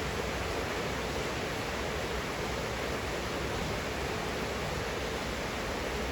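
Steady rain falling, heard from a window: an even, unbroken hiss.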